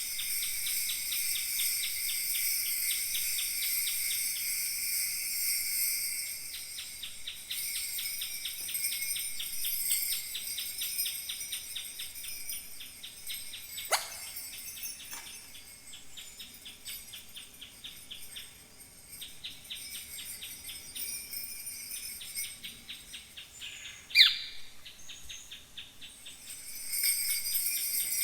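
Kaskawillas, Mapuche bronze bells, shaken in a fast, even rhythm to imitate falling water. The jingling thins out through the middle and swells again near the end. Two short falling chirp-like sounds cut in, about halfway and near the end, and the second is the loudest sound.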